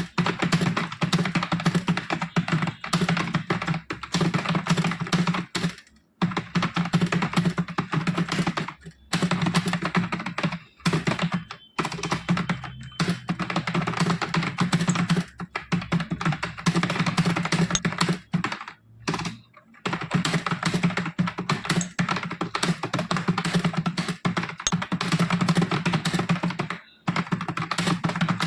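Fast touch-typing on a computer keyboard: a rapid, continuous clatter of keystrokes, broken by a few brief pauses.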